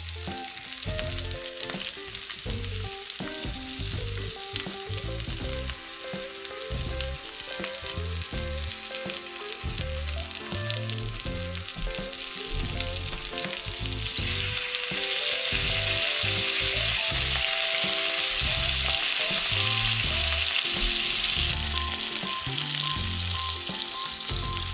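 Halibut fillet frying in hot butter with lemon wedges in a frying pan, a steady sizzle that grows clearly louder about halfway through. Background music with a repeating bass line plays underneath.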